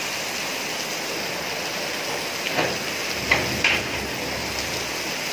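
Heavy rain pouring steadily onto paving. About halfway through come a few short knocks and scrapes from the metal porch gate as it is unlatched and swung open.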